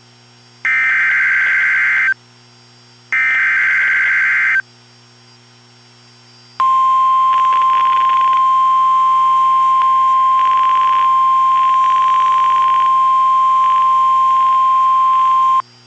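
Emergency Alert System SAME header data: two buzzy, warbling bursts of digital tones, each about a second and a half long and a second apart. A couple of seconds later a single steady alert tone near 1 kHz, the NOAA Weather Radio 1050 Hz warning alarm tone, sounds for about nine seconds and cuts off. It signals that a warning message is about to be read.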